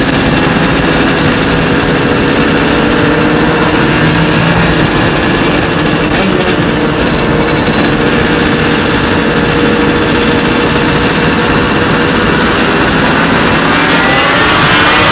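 Two-stroke motorcycle engines running at a steady road speed under heavy wind rush. Near the end the engine note rises as the bikes rev, echoing as they enter a road tunnel.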